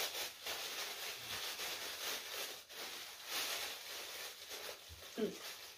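Gift-wrapping paper crinkling and tearing as a heavily taped present is pulled open by hand.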